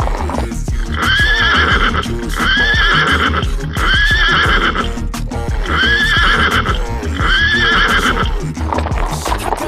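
Children's background music with a steady beat, over five near-identical horse whinnies repeated about once a second, like a looped sound effect.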